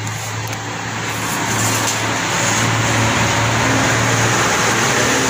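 A motor vehicle running close by: a steady low engine hum under a broad rushing noise that grows louder over the first few seconds and then holds steady.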